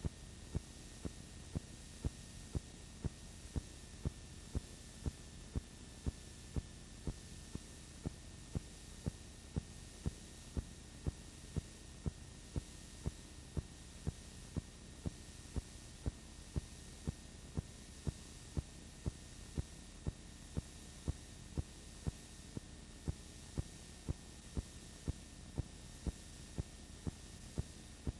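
A steady electrical hum and hiss with a short low thump repeating evenly, a little under twice a second, like the steady beat of a heart: background noise on the soundtrack of a silent home movie.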